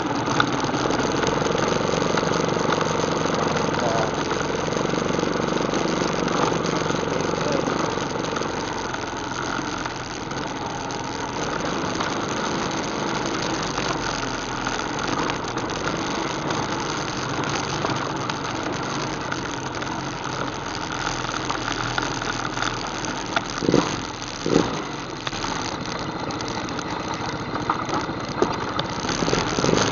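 ATV engine running at low throttle on a trail ride, with a pitched engine note in the first several seconds that then settles. Two short sharp knocks come about three-quarters of the way through.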